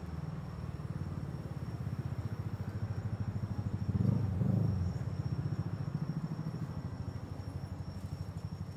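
A vehicle engine running at low revs, a low rumble with a fast, even pulse that swells briefly about four seconds in.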